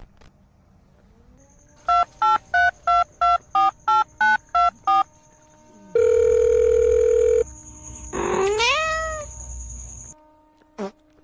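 A quick run of about eleven short electronic beeps of varying pitch, then one loud steady electronic tone lasting about a second and a half, then a single cat meow that rises and falls in pitch.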